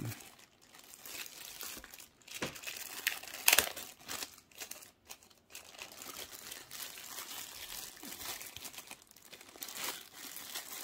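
Thin plastic wrap crinkling and rustling as hands peel it off a small portable speaker, with sharper crackles now and then, the loudest about three and a half seconds in.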